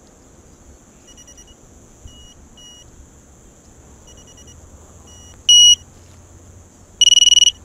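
Electronic beeps from small FPV drone gear, all at one steady high pitch: a string of short, faint beeps, then a loud beep about five and a half seconds in, and a longer, loud, rapidly pulsing beep near the end.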